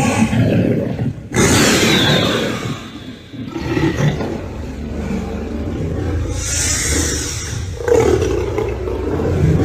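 Designed monster sound effects: a run of deep, rough creature roars and growls, the loudest starting sharply about a second in, with more following in the second half.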